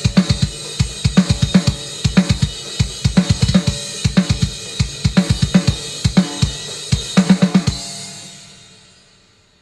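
Drum kit played hard and fast, with bass drum, snare and cymbals. It stops about eight seconds in, and the cymbals ring out and fade away.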